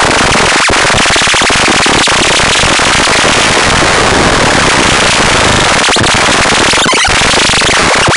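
Loud, harsh electronic buzz sound effect, steady throughout, with a gritty crackle running through it.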